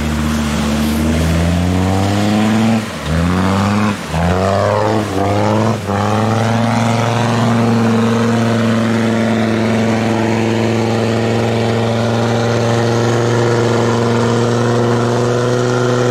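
Land Rover Discovery TD5's five-cylinder turbodiesel engine revving hard. Its pitch climbs and drops sharply three or four times in the first six seconds, then it holds high, steady revs.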